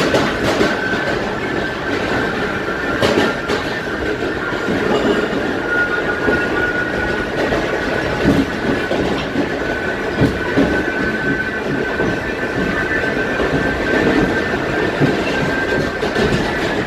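R46 subway car running at speed through a tunnel, its drive giving a steady high-pitched howl over the rumble of wheels on track. A few clacks of wheels over rail joints come through it.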